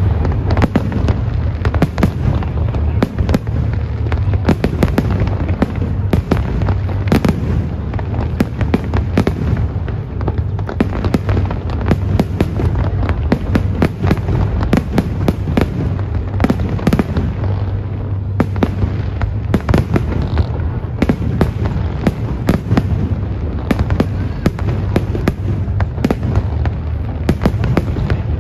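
Professional fireworks display: aerial shells and fans of rising stars going off in a dense, near-continuous barrage of bangs and crackles, with a steady low drone underneath.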